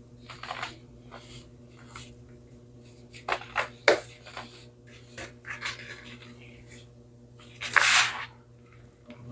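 Close-miked crunching and crumbling of baking soda, in irregular crisp crackles with a louder, longer crunch near the end.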